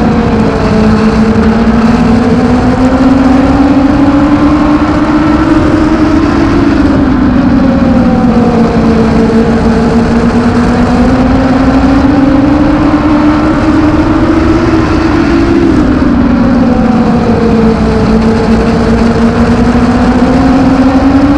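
Legends car's Yamaha four-cylinder motorcycle engine at racing speed, heard from inside the cockpit. Its note sags and climbs again about every eight seconds as the driver comes off the throttle for the turns and accelerates down the straights.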